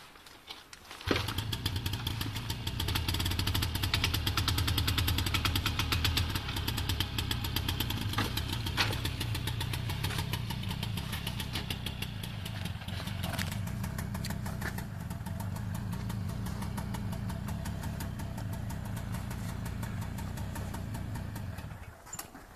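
Moped engine catching about a second in, running hard and revving for several seconds, then settling to a steadier, quieter run before cutting out shortly before the end.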